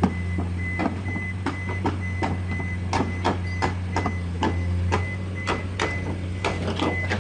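Machinery running with a steady low hum, a rapid train of clicks or knocks about three a second, and a high beep that repeats on and off.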